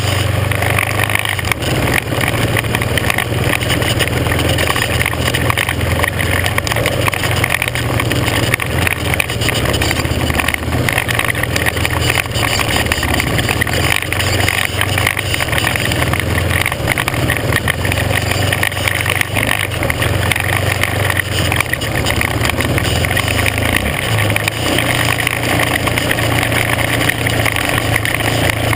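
Off-road vehicle's engine running steadily as it drives over a rough gravel trail, with constant noise of tyres on gravel and small rattles and jolts throughout.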